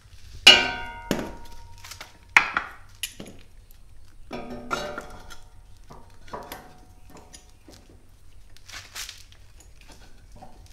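Metal jacking gear being handled and set in place: a bottle jack and steel jack stand on wooden blocks. Two sharp ringing metal clangs come in the first few seconds, then a cluster of knocks and clinks, and lighter knocks after that.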